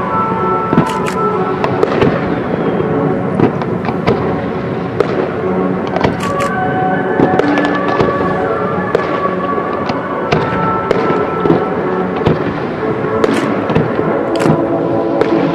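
Fireworks display: many sharp bangs and crackles from shells going off at irregular intervals, with music playing underneath.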